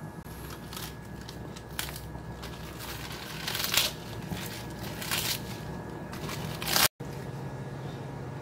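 Young winter cabbage (eolgari) torn apart by hand: several short, crisp tearing and crackling rustles of the leaves, the loudest about halfway through, over a steady low hum.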